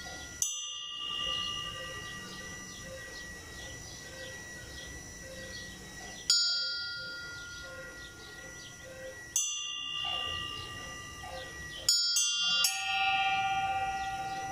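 Church bells struck one stroke at a time in a slow funeral toll (toque de difunto), each stroke ringing on and dying away. Single strokes come about a second in, about six seconds in and about nine seconds in, then three quick strokes near the end, the last on a deeper bell that keeps humming.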